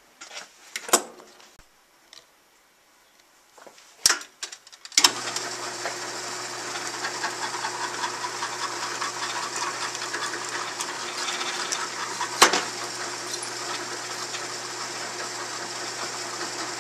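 Scattered clicks and knocks of metal being handled, then a benchtop drill press switched on about five seconds in and running steadily while a 3/16-inch hole is drilled through a flattened brass rifle case held in pliers. A single sharp tap sounds about twelve seconds in.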